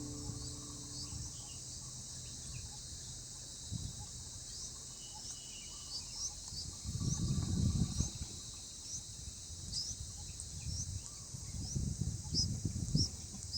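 A steady, high-pitched insect chorus of crickets, with many short, high chirps running through it. Low rumbling swells up about seven seconds in and again near the end.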